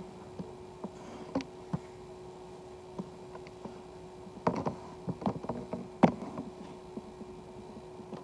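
Light fingertip taps and clicks on an iPad touchscreen, scattered and irregular, with a quicker run of them about halfway through, over a faint steady hum.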